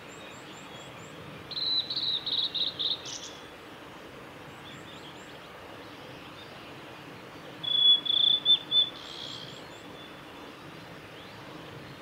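Male blue-and-white flycatcher singing: two short song phrases of quick, clear notes, one about two seconds in and another near eight seconds, each ending on a higher note.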